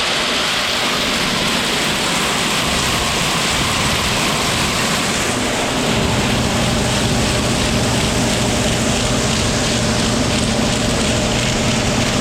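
Farm machinery running steadily under a strong, even hiss, with a low hum that grows a little louder about halfway through.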